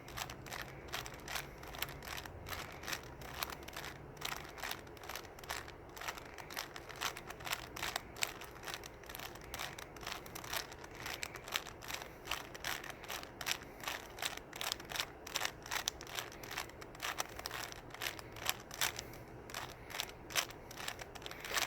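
Rubik's cube being turned fast by hand: its plastic layers clicking and clacking in quick, irregular runs of several turns a second.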